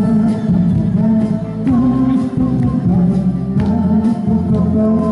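Live amplified performance of a Korean pop ballad: singing over acoustic guitar and keyboard, through microphones and a PA.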